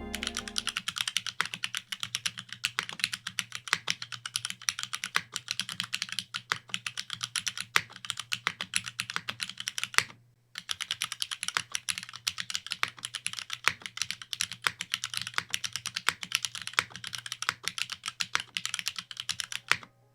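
Typing test on a Geonworks Glare TKL top-mount mechanical keyboard with lightly lubed Cherry MX Black linear switches and GMK keycaps: quick, steady keystrokes, in two runs with a brief break about ten seconds in.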